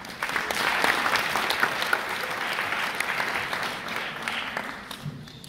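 Audience applauding: a dense patter of many hands clapping that starts at once, is loudest in the first couple of seconds, then dies away toward the end.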